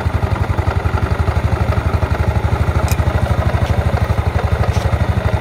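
Yamaha Mio scooter's single-cylinder four-stroke engine idling steadily with an even, rapid pulse while the idle mixture screw on its vacuum-type carburettor is being set.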